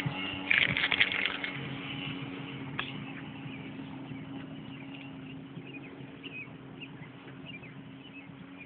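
Jet ski engine running at a steady pitch and slowly fading as the craft moves away, with a brief burst of noise about half a second in.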